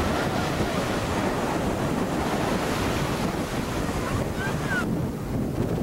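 Wind buffeting the camcorder microphone over small waves washing onto a lake beach. The higher hiss thins out near the end.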